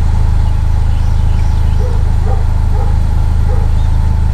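A dog barks four short times in the second half, over the steady low rumble of an idling vehicle engine.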